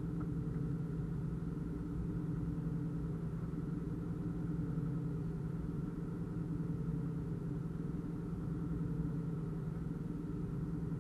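A narrowboat's engine running steadily at a constant low pitch as the boat moves along the canal.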